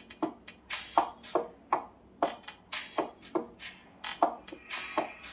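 Music with a sharp, steady percussive beat played through a Xiaomi 12 Pro's built-in speakers, thin and with almost no bass.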